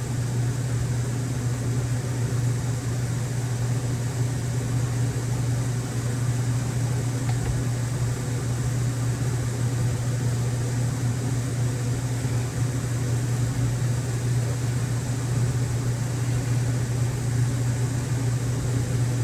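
Steady low hum with an even hiss above it, unchanging throughout: background noise of the kind a fan or air conditioner makes.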